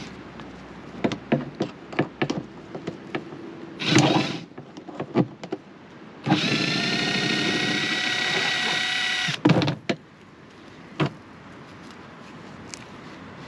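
A power drill running steadily for about three seconds in the middle, among scattered clicks and knocks of tools and fittings being handled.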